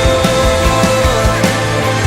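Live church worship band playing loudly without singing: a held note rings over a steady drum beat of about four thumps a second.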